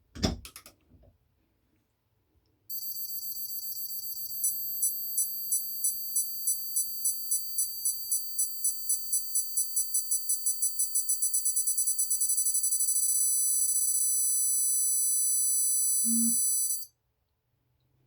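Digital torque wrench's electronic beeper: a high-pitched tone starts about three seconds in and beeps faster and faster as the torque builds. It then holds a continuous tone for several seconds, signalling that the set torque has been reached, before cutting off. A short knock near the start and a low thump just before the tone stops.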